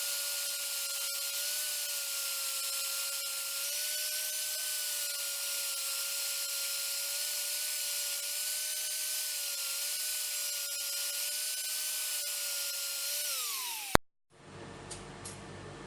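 A small electric power tool runs steadily with a motor whine and hiss, then is switched off and winds down, its pitch falling, just before an abrupt cut about 14 seconds in. After the cut come a few light ticks.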